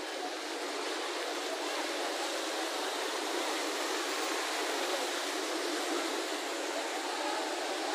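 Steady rush of water from ornamental fountain jets spraying and splashing into their pool.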